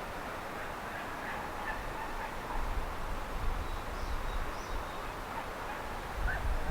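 Outdoor ambience: a steady hiss with a few short, faint bird calls scattered through it. Low wind rumble on the microphone comes and goes, picking up near the end.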